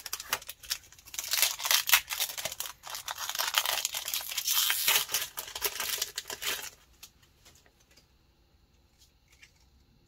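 Foil wrapper of a Pokémon TCG booster pack crinkling and tearing as the pack is taken from the box and ripped open. The crackle lasts about seven seconds, then stops.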